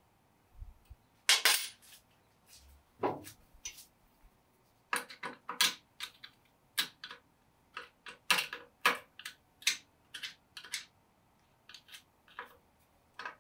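Irregular metal clicks and clinks of hand tools and small steel hardware against the jointer's cast iron mechanism and table. The loudest, slightly longer clink comes about a second in, with a denser run of sharp clicks in the middle.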